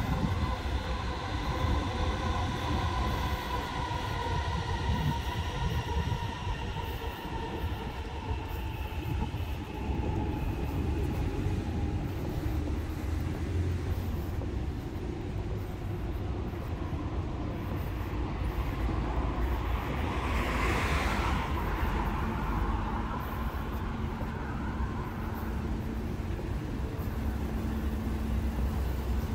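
Steady rumble of traffic on a wide city road. In the first ten seconds a whining tone slowly falls in pitch, and about twenty seconds in a vehicle swishes past.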